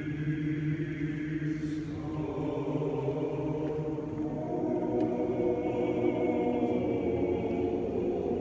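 Male chorus singing a Russian folk song a cappella in sustained chords; the chord shifts about two seconds in, and higher voices swell in around the middle.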